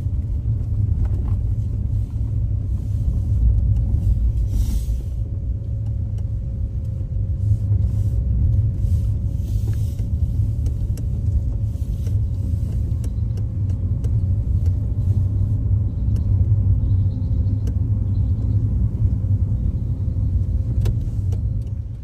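Car driving along a road, heard from inside the cabin: a loud, steady low rumble of road and engine noise with a faint steady hum above it.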